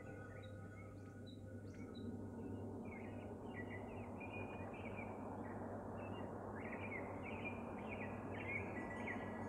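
Birds chirping in quick short calls, thickening from about three seconds in, over a steady background hiss and a low hum.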